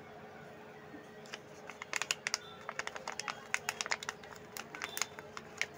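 A small cashew snack pouch crinkling as fingers squeeze and turn it: a quick, irregular run of sharp crackles that starts about a second in.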